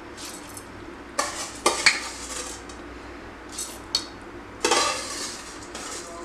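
A metal spoon clinking and scraping against a stainless steel mixer-grinder jar as soaked raw rice is spooned into it, in about five separate bursts.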